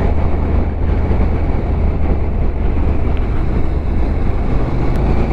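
Motorcycle engine running steadily under way, a constant low drone mixed with wind and road noise.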